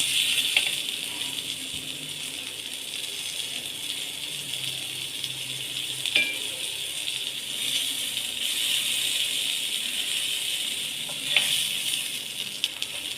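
Boneless hariyali chicken pieces sizzling steadily in oil in a pan, with a few sharp clicks scattered through.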